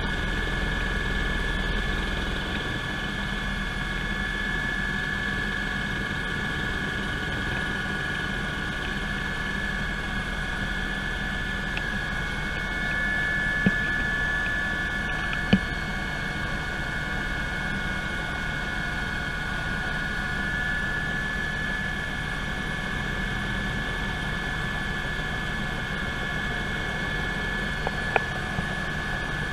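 Cabin noise of a Eurocopter EC120 Colibri in cruise: its Turbomeca Arrius turbine and rotor running steadily, with a constant high whine over a low drone. A few brief clicks stand out near the middle and near the end.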